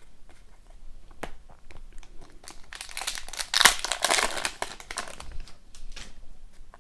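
Foil wrapper of a hockey card pack being handled and torn open, crinkling loudly for a few seconds in the middle, with scattered small clicks of cards being handled.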